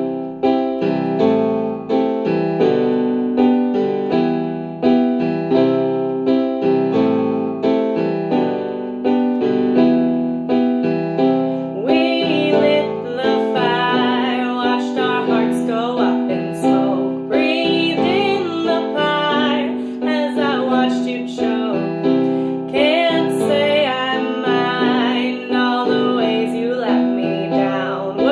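Solo piano playing chords for the song's intro, joined by a woman singing over it from about twelve seconds in.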